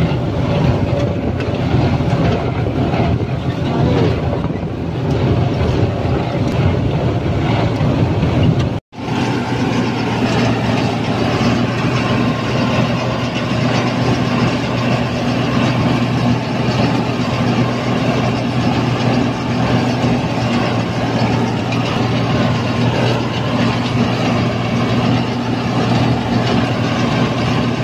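Combine harvester running under load, its six-cylinder turbo Mercedes diesel engine and threshing machinery making a loud, continuous drone. About nine seconds in the sound cuts out for an instant and comes back as a steadier hum with a low, even tone.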